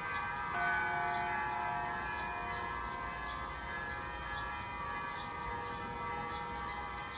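Wind chimes ringing: many bright tones overlap and sustain, with new notes struck every second or so.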